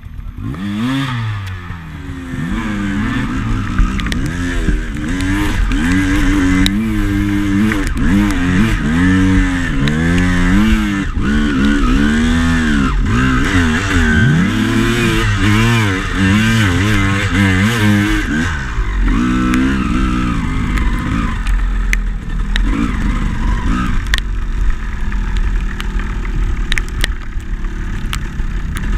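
Honda CR250 two-stroke dirt bike engine, revved up and down again and again under load as the bike is ridden through mud and up a bank. About 19 seconds in the revving eases to a steadier note, with scattered knocks and clatter from the bike.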